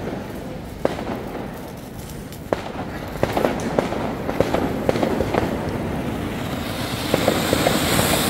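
Diwali flower-pot fireworks (chichubuddi, ground fountains) hissing as they spray sparks, with scattered sharp cracks and bursts of crackling. The hiss swells and grows brighter near the end as a fresh fountain shoots up to full height.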